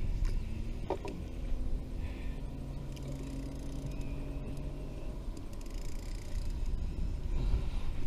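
Wind rumbling on the microphone over open water, with a faint steady low hum and a short rising squeak about a second in.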